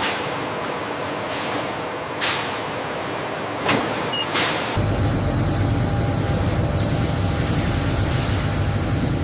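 Heavy machinery: several short sharp hisses of released air, then a steady low engine-like rumble starts about halfway through and keeps running.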